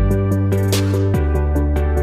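Electronic background music with a steady beat of hi-hat-like ticks over sustained synth chords and a bass line.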